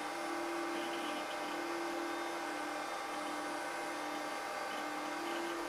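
Quantel HAL Express video compositing system running, giving a steady whirring hum with a strong low tone and several higher steady tones.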